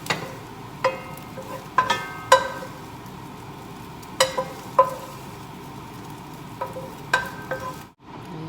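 Scrambled eggs sizzling in oil in a hot pan, with about ten ringing clinks, irregularly spaced, as a spatula stirs and knocks against the pan. The sound cuts off suddenly near the end.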